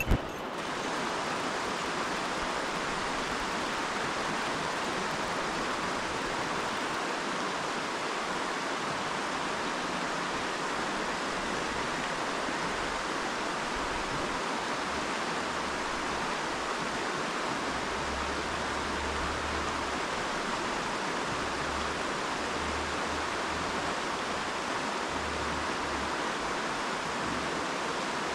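Steady rush of a mountain stream's flowing water, an even unbroken hiss. A faint low rumble comes and goes in the second half.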